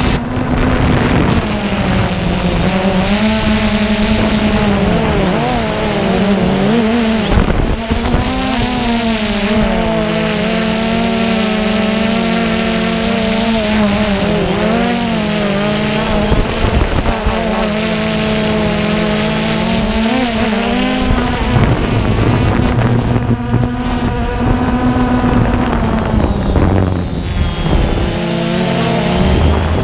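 DJI Phantom 2 quadcopter's motors and propellers buzzing, heard up close from the camera slung under the drone. The pitch rises and falls over and over as the motors speed up and slow down in flight.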